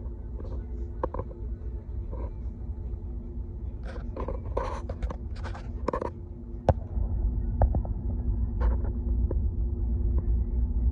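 Steady low rumble with a faint hum, and brief muffled voices about four to six seconds in. A sharp click comes just after, and the rumble then grows louder.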